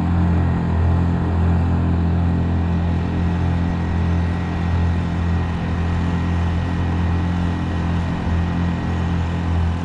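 Honda GX50 single-cylinder four-stroke, air-cooled kayak outboard running steadily at cruising throttle, not wide open. It is a constant low engine drone that holds the same pitch throughout.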